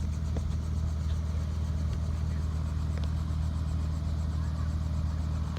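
Helicopter running with a steady low drone and a faint, even beat of the rotor blades.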